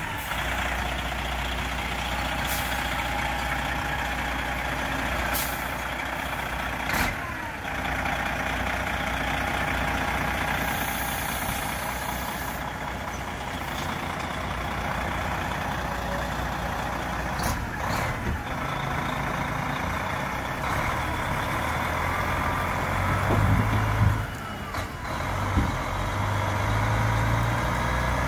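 Cabover semi truck's diesel engine running at low speed as the truck pulls out, with a few short sharp hisses or clicks along the way; the engine gets louder near the end as it pulls away.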